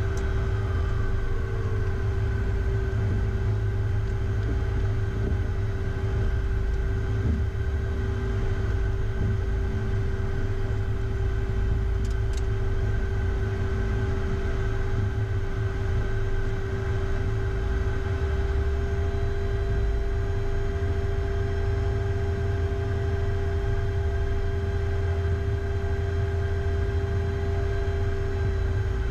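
Cabin noise of a Beechcraft Premier I business jet taxiing on one engine: a steady jet-engine hum with a constant tone over a low rumble.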